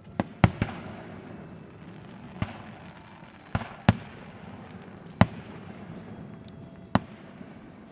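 Aerial fireworks shells bursting: about eight sharp bangs, three in quick succession near the start, then one every second or two, each followed by a short echoing rumble.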